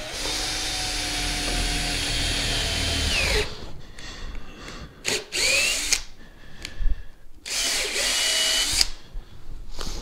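Cordless drill boring through a thick, nylon-reinforced rubber sheet. One steady run of about three and a half seconds drops in pitch as it winds down, followed by two shorter bursts.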